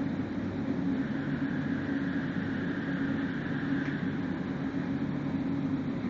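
Steady running noise inside an LRT Line 1 light-rail car: a low, even hum with wheel and rail noise as the train pulls into a station.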